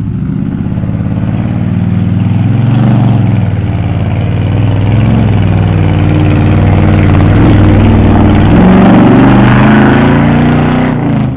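Chevy square-body pickup's engine revving hard under load while its tyres churn through a water-filled mud rut, pulling a boat hull behind it. The revs rise and fall over mud and water noise and ease off just before the end.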